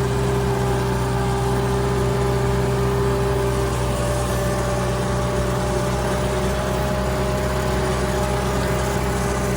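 Tractor engine and tractor-mounted mower running steadily under load while mowing grass. A steady hum, with one tone stepping up in pitch about four seconds in.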